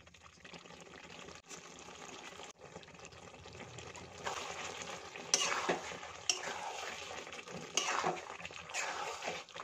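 Thick aloo dum gravy of potatoes, tomato and cashew paste bubbling and spluttering in a metal kadai, a faint steady hiss at first. From about four seconds in it grows louder, with several short sharp pops.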